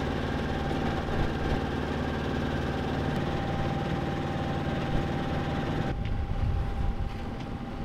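Dana 24's inboard diesel engine running steadily under way while motor-sailing, a low even drone with a faint steady whine over it. About six seconds in, the sound shifts to a low rumble of wind on the microphone, with the engine further in the background.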